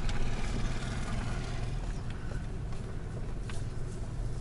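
A car driving, with a steady low rumble from the engine and road and a few faint clicks.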